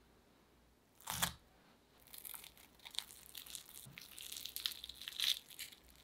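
A short, loud noise about a second in, then about three seconds of crisp crackling and crunching as a breadcrumb-coated fried potato and zucchini croquette is torn open by hand.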